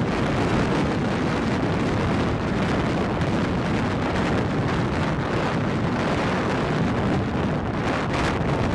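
Strong dust-storm winds blowing over the microphone: a loud, steady rush of wind noise.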